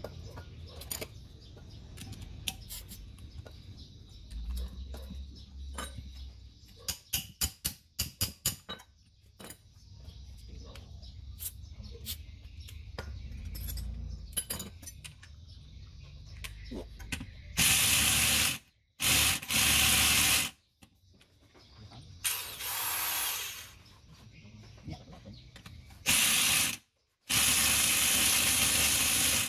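Hand work on parts of a 24-volt truck alternator: tools and metal parts clicking and knocking, with a quick run of about six sharp, ratchet-like clicks about seven seconds in. From about seventeen seconds in come loud hissing blasts, several in a row with short gaps between them.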